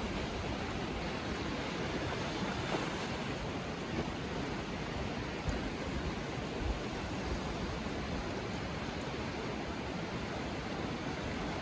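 Steady noise of sea surf and wind, with a low, gusty rumble of wind on the microphone.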